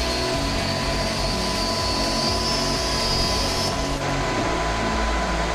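Hand-held electric grinder running against a metal fitting with a high whine that rises slightly, then cuts off a little over three and a half seconds in. A steady lower hum continues beneath it.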